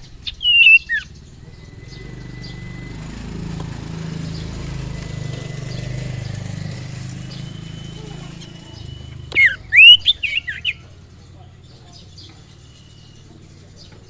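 Songbird giving a short, sharp whistled call about half a second in, then a loud burst of quick, sharply rising and falling chirps near the ten-second mark. Between the calls a low rumble swells and fades.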